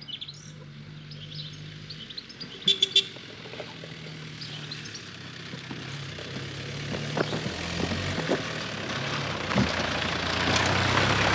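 A vehicle's engine running steadily, with a few short horn toots about three seconds in; the engine and road noise grow louder toward the end.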